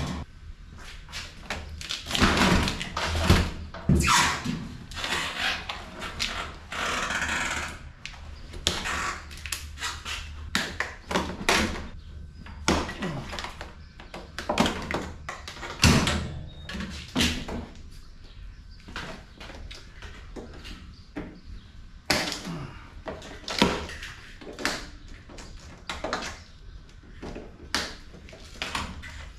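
Hands and tools working on a piece of scrap being dismantled: irregular metal clanks, clicks and rattles of screws and parts, with a longer rasping scrape lasting about a second and a half around seven seconds in.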